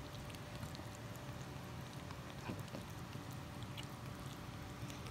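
Two Maltipoo puppies licking each other's faces and mouths: faint, scattered small licking clicks over a faint steady hum.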